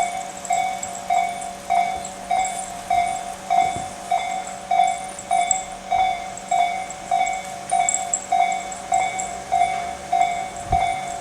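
Electronic warning bell of a Japanese railway level crossing, the slow Tobu Tojo Line type, ringing at an even beat of just under two strokes a second: the crossing is closed for an approaching train.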